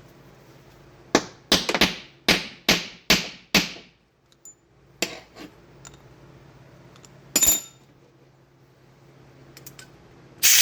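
A string of short, sharp blasts from a compressed-air blow gun, about seven in quick succession, then a few more spaced out, one with a thin whistle, blowing out a Magnum V8 hydraulic roller lifter being freed up and cleaned.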